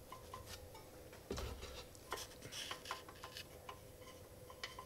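Faint, irregular light metallic clicks and ticks as the rocker arms of a Honda GXC160 engine are handled by hand with the valve cover off. The piston sits on the compression stroke, where the valves can be set. A faint steady hum runs underneath.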